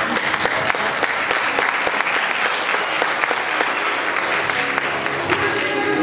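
Audience applauding, a dense clatter of clapping over background music. Near the end the clapping thins and the music comes to the fore.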